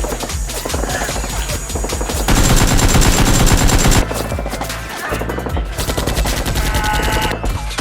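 Rapid machine-gun-style gunfire in quick bursts of shots, densest and loudest from about two to four seconds in.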